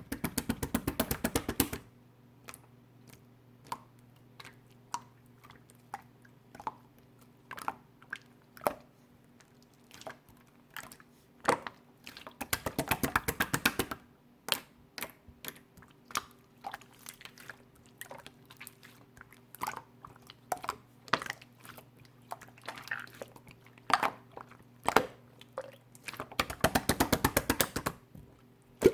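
Slime being squished and stretched by hand, giving sticky pops and clicks. Three runs of fast crackling come near the start, about halfway through and near the end.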